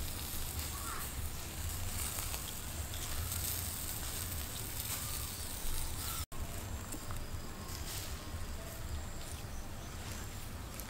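Steady hiss of a chicken roasting on a spit over glowing wood embers, with a faint low rumble beneath; it cuts out for an instant about six seconds in.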